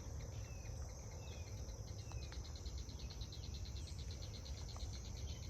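Crickets and other insects keep up a steady high chorus, joined for a few seconds by a fast pulsing trill. Three short falling chirps come in the first couple of seconds.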